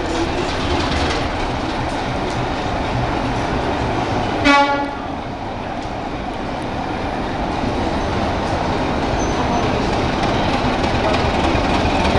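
Type 2 diesel locomotive engine running as the locomotive approaches slowly, growing louder as it nears. It gives one short horn blast about four and a half seconds in.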